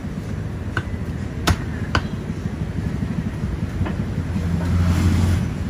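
Busy background noise at a street-side food stall: a steady low rumble with a few sharp clinks, like tableware, and a low motor hum that swells for about a second near the end.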